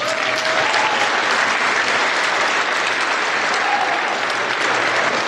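An audience of high school students applauding, a dense steady clatter of many hands clapping that starts suddenly.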